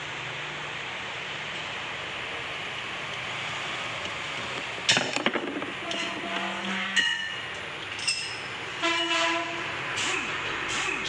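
Metal parts and tools knocking and clinking together several times, some strikes leaving a brief metallic ring, over a steady hiss, as a starter motor is put back together.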